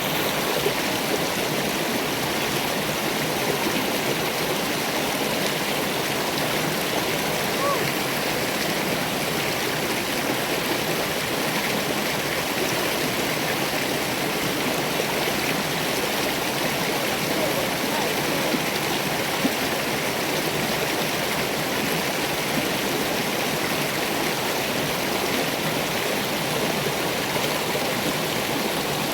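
River water flowing with a steady, even rush that does not change.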